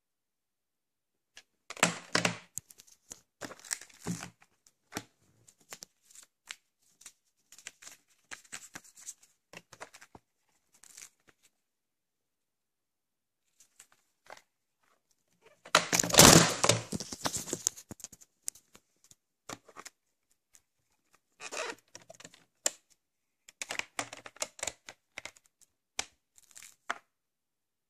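A plastic VHS clamshell case and cassette being handled and opened: scattered clicks and knocks with short bursts of plastic crinkling, the loudest burst a little past halfway.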